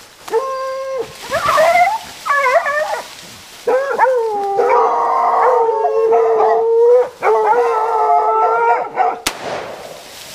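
Hunting dogs howling and baying: three short even calls, then a few rising yelps, then long drawn-out howls from more than one dog overlapping.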